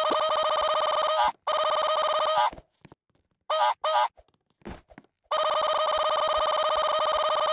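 Telephone ringing: a rapidly pulsing, fixed-pitch electronic trill in bursts about a second long with short silences between, then a longer unbroken ring starting about five seconds in.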